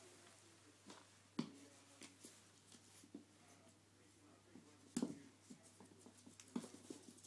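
A puppy scuffling with a plush toy on a laminate floor: faint scratching and scrabbling with a few soft thumps, the loudest about five seconds in.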